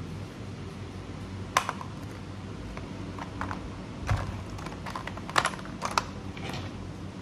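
Light, irregular plastic clicks and clacks, about eight, as colouring markers are picked through and handled, over a steady low hum.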